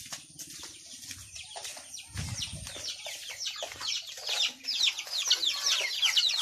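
Backyard chickens with young chicks: a chorus of rapid, high, falling peeps mixed with clucking, growing louder toward the end. A low thump about two seconds in.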